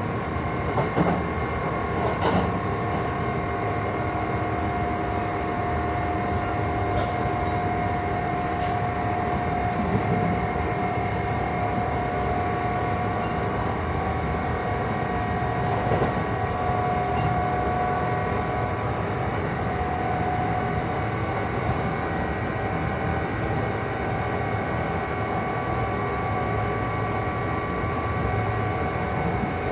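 Kintetsu 2800 series motor car running at steady speed: the resistance-controlled Mitsubishi MB-3110A traction motors and gearing give a steady whine of several held tones over a low rumble. An odd extra noise from the drive couplings makes this low-pitched car sound unlike the usual ones. A few sharp rail-joint clicks come in the first half.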